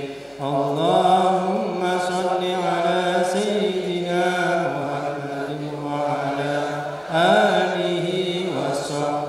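Melodic Arabic dhikr chant of a Sufi gathering, sung continuously in long gliding phrases, with a short breath break about half a second in and another about seven seconds in.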